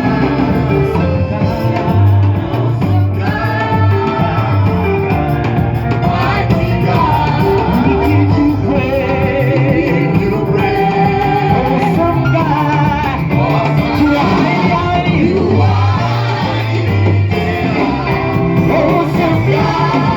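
Church praise and worship music: several voices singing over an accompaniment with a repeating low bass line, going on steadily throughout.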